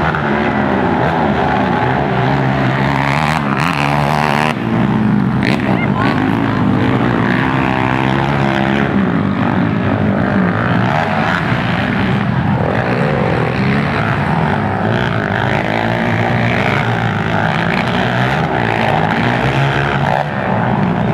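Several racing quad (ATV) engines revving hard and easing off as the quads race around a dirt motocross track, many rising and falling engine pitches overlapping. A brief hiss cuts in about four seconds in.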